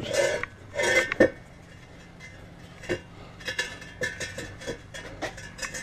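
Metal clinks and knocks from a heavy grinder stand, a pipe post on an old rusted railroad motorcar wheel, being rolled and eased down concrete steps. There are a few louder bumps in the first second and a half, then a run of light clinks and taps.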